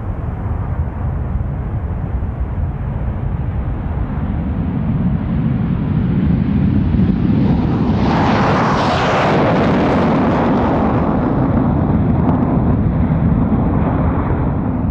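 BAC TSR2's two Bristol Siddeley Olympus afterburning turbojets at take-off power: a steady jet rumble that builds, then grows sharply louder and harsher about eight seconds in as the aircraft lifts off and climbs away, easing a little toward the end.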